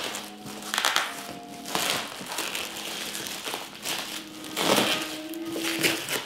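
Plastic wrap crinkling in several bursts as it is pulled and peeled off a long cardboard shipping box.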